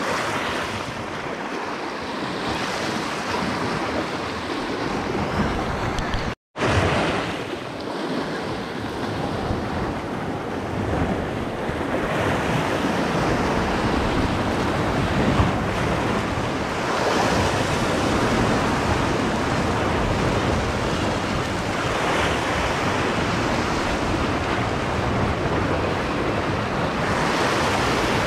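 Sea surf washing and breaking against the rocks below, swelling every few seconds, with wind noise on the microphone. The sound cuts out for a moment about six seconds in.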